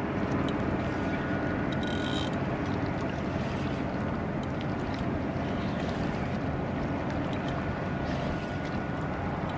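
Steady rushing wind and water noise on the microphone at a shoreline. A faint, thin, high steady tone comes and goes twice.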